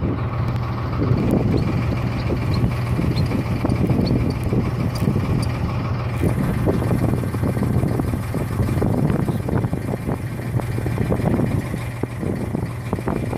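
A boat's engine running steadily with a low hum, with gusty wind buffeting the microphone.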